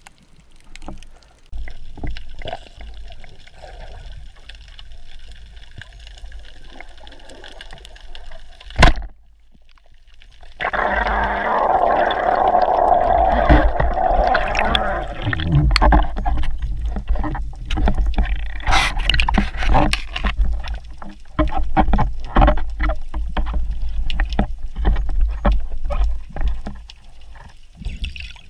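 Muffled underwater water noise picked up through an action camera's waterproof housing during a spearfishing dive, with scattered clicks and knocks. A sharp knock about nine seconds in is followed by a brief drop-out, then a louder stretch of rushing water.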